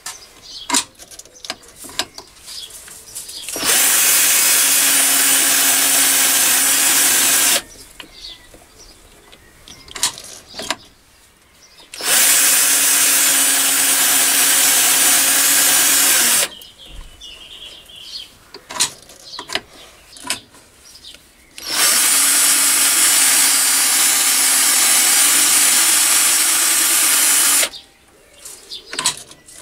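Electric hand drill spinning a Machifit toolpost drill spindle, run three times for about four to six seconds each as holes are drilled in a tube held in the lathe chuck. Between the runs come clicks and knocks as the work is indexed round by hand.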